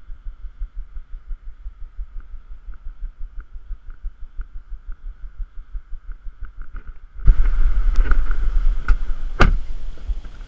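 Car running, a low rumble with quick uneven pulses, which jumps abruptly much louder and fuller about seven seconds in. A sharp knock comes about nine seconds in.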